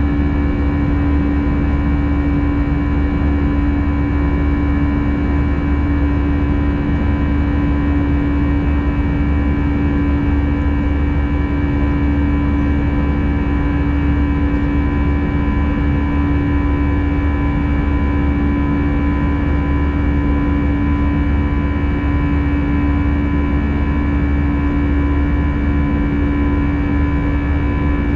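Airbus A320 cabin noise in climb: the steady drone of the jet engines and rushing air, with a strong low hum and several fainter steady tones above it.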